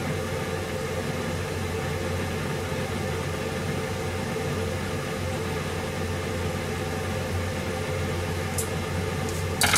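Steady hum and hiss of a running kitchen gas stove heating a pan of water, with a short sharp clatter near the end.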